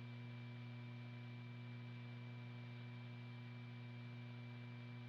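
Faint steady hum with an even hiss, with no other sound: the background noise of the soundtrack. No gunfire or mechanical action is heard.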